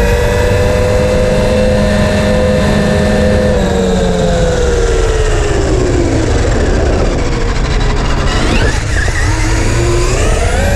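Traxxas RC truck's electric motor whining as it drives. The pitch holds steady for a few seconds, falls away as it slows, then climbs again near the end, over a steady low rumble.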